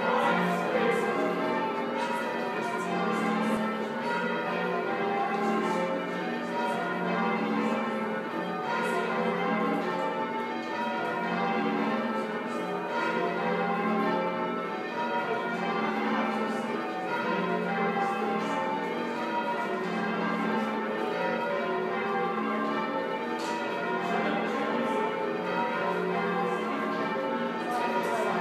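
A ring of church bells ringing continuously, many bells struck one after another in quick succession so that their tones overlap.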